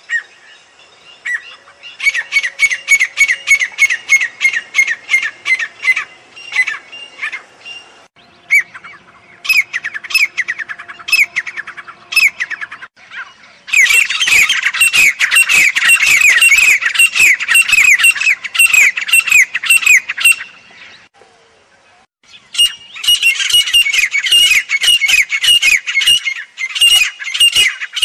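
Grey francolin calling: loud rapid series of high, falling notes, about four or five a second, in four bouts with short pauses between them.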